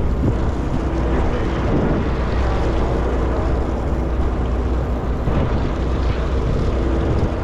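Fishing boat engine running steadily: a low rumble with an even hum over it, mixed with wind and water noise.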